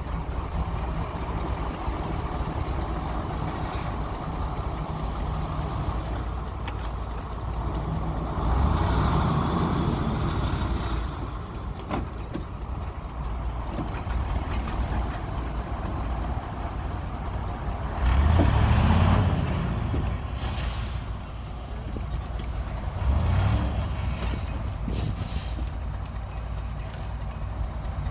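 Komatsu D60P bulldozer's diesel engine working steadily with a low drone, swelling louder three times as it takes load, about a third of the way in, around two-thirds and near the end. A few short hisses come in the later part.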